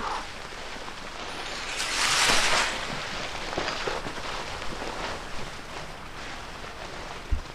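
Footsteps and rustling of hikers walking a rough mountain trail, with a louder rustle about two seconds in that lasts under a second.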